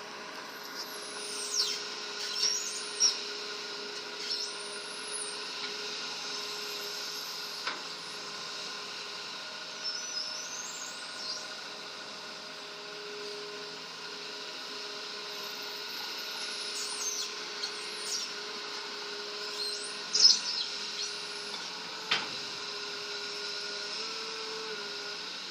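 A low-powered excavator engine running steadily at working load, with a few sharp knocks and thin, high chirping whistles over it.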